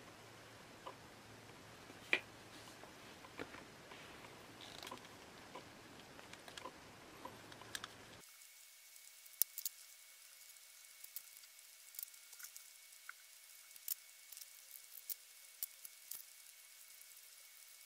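Faint, scattered light clicks and taps of small metal parts being handled: bronze drag washers, then the side plate and gears of an Abu Garcia Ambassador 4500C baitcasting reel. About eight seconds in the background changes abruptly, and the clicks come sharper and more often over a faint steady whine.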